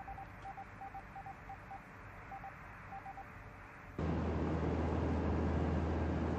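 Faint Morse code from a radio telegraph: groups of short, even beeps at one pitch. About four seconds in, a cut to the steady low drone of the Mitsubishi G4M bomber's twin radial engines heard from inside the cabin.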